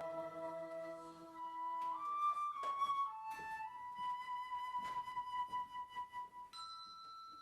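Slow instrumental music in a church: a sustained chord fades away, then a flute-toned melody of single long notes follows, stepping to a higher note near the end.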